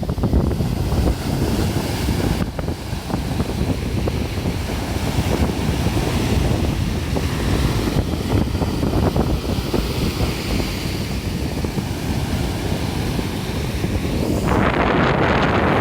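Strong wind buffeting the microphone over the rush of sea surf breaking on the beach. Near the end the noise turns brighter and hissier.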